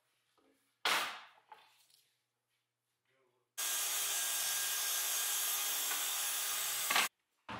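A single sharp wooden knock about a second in, like a hardwood board set down on the bench. Then a loud, steady rushing noise starts abruptly, runs for about three and a half seconds and cuts off just as abruptly. A second knock comes near the end.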